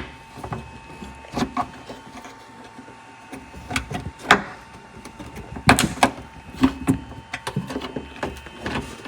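Irregular plastic clicks and knocks as clips are pressed free and the rear camera and trunk switch are worked out of a Tesla Model 3's trunk trim panel, with a few sharper snaps about four and six seconds in.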